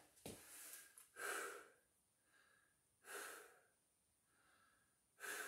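A man breathing hard through his mouth, catching his breath after exertion. Deeper breaths come about every two seconds, with fainter ones between.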